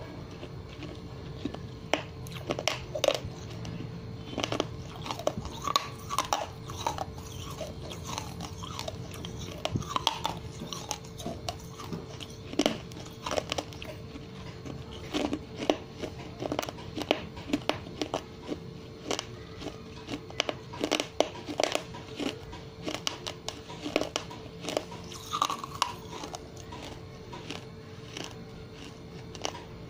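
A person chewing a hard, brittle mouthful close to the microphone: irregular sharp crunches, a few each second, over a faint steady hum.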